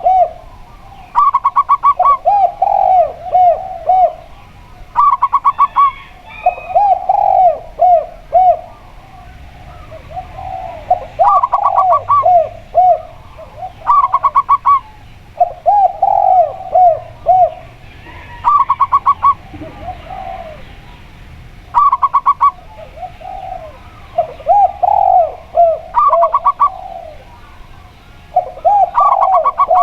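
A zebra dove and a spotted dove calling back and forth without a break. Short, rapid, higher-pitched bursts alternate with lower coos of several notes each, repeating every two seconds or so.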